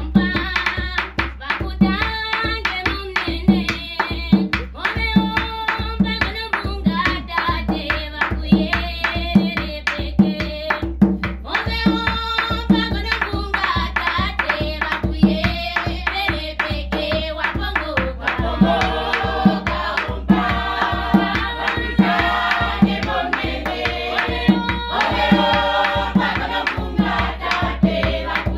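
Choir singing together to a steady beat on a tall wooden barrel drum, about two strokes a second.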